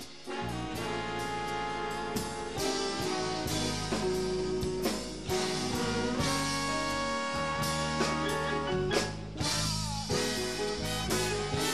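Big-band jazz playing an instrumental passage: a brass section holds chords over a drum kit struck with sticks, with frequent cymbal and drum hits.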